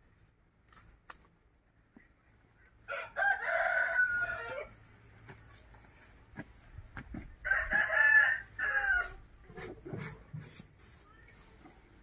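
A rooster crowing twice, each crow about a second and a half long and falling in pitch at its end, with faint rustles and clicks of chopped feed being handled between the crows.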